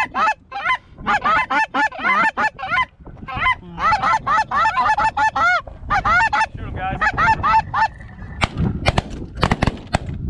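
Snow geese calling, a rapid, overlapping run of short yelping honks, several a second. About eight seconds in, a volley of shotgun blasts from several guns in quick succession breaks in.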